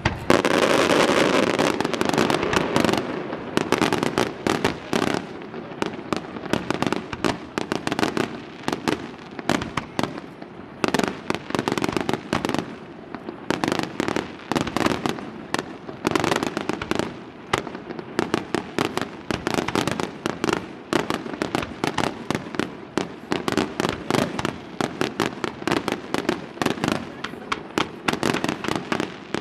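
Aerial fireworks display: a dense, rapid barrage of bangs and crackling reports, several a second, heaviest in the first few seconds.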